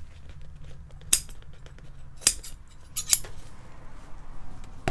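Upholstery scissors snipping off excess seat covering: several separate sharp snips about a second apart, the loudest right at the end.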